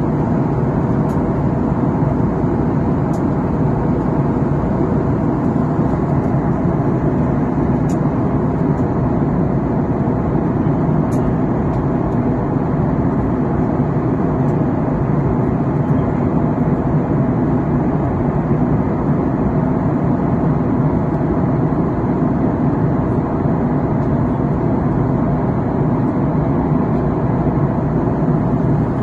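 Steady cabin noise of a jet airliner in cruise, heard inside the cabin: an even, unchanging rumble of engines and airflow. A few faint ticks come in the first dozen seconds.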